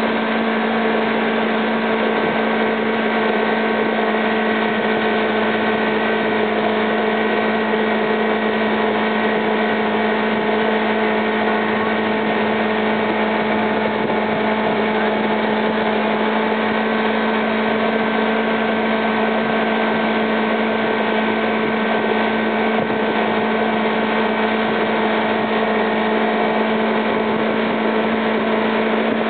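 Tow boat's engine running at a steady speed, a constant hum, over the rush of water from its wake.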